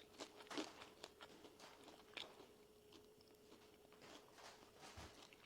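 Faint chewing of crispy fried green plantain: soft crunches at irregular moments, over a faint steady hum.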